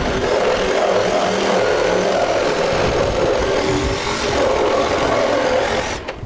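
Handheld power tool motor running under load overhead, its pitch wavering up and down, stopping abruptly near the end.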